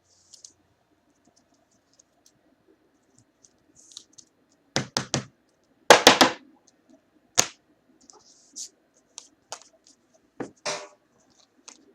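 Hands handling trading cards and their packaging: scattered light clicks and scrapes, with a cluster of sharper, louder knocks and scrapes about five to six seconds in and a few more later.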